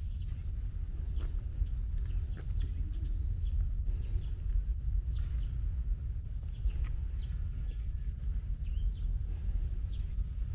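Birds chirping, many short quick calls scattered throughout, over a steady low rumble.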